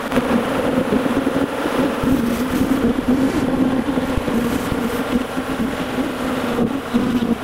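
Swarm of honey bees from an opened, populous hive buzzing in a loud, steady hum, with a few light knocks of wooden frames being worked with a hive tool.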